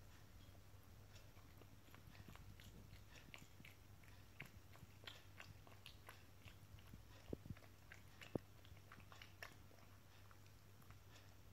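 Faint chewing and crunching of a cat eating from a bowl, a run of short crunches with a few sharper ones past the middle.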